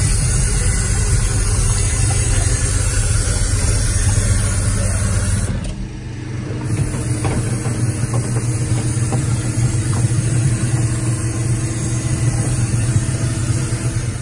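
Pit Shot pit-launched directional drill running steadily as it drives the drill rod forward through the bore, with a constant low machine hum. The sound drops briefly about five and a half seconds in, then carries on the same.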